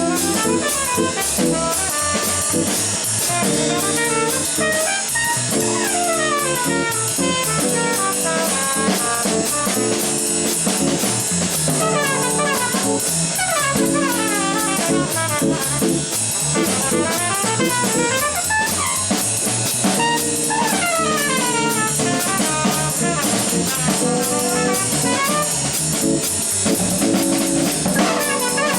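Live jazz on organ, drum kit and horns, with a horn soloing in quick up-and-down runs over short organ chords that recur about every two seconds.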